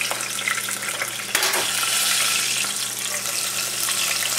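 Chopped onion, garlic, jalapeño and tomato sizzling as they are scraped off a cutting board into hot cooking oil in a saucepan. There is a sharp knock about a second and a half in, and after it the sizzling gets louder as more goes into the oil.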